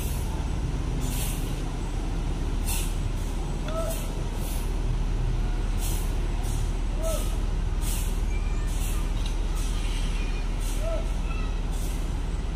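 Mercedes-Benz 1626 coach's diesel engine running low and steady as the bus pulls away slowly, with short hisses of air from its pneumatic brakes every second or so.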